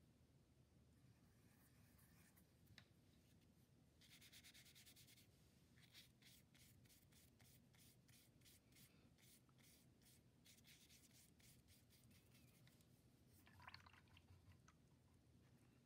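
Faint scratchy strokes of a paintbrush brushing paint across paper, many quick strokes one after another from about four seconds in, with a short scuffle near the end.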